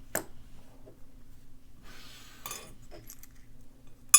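Small metal parts of a round-body padlock clicking and clinking as it is taken apart: a sharp click near the start, a brief scrape about halfway, and a loud metallic clink right at the end.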